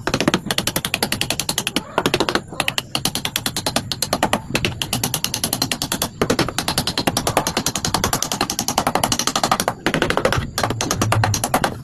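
Rapid, even mechanical hammering from a tool, about ten strikes a second, in long runs broken by a few brief pauses.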